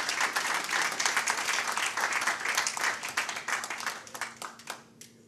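Audience applauding: many people clapping together, starting suddenly, thinning out about four seconds in, with a few last scattered claps before it dies away.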